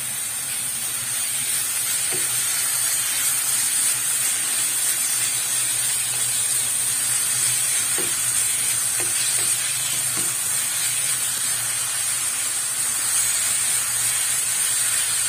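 Grated coconut and palm sugar filling sizzling steadily in a frying pan as it is stirred with a wooden spatula and cooked down until thick, with a few light knocks of the spatula.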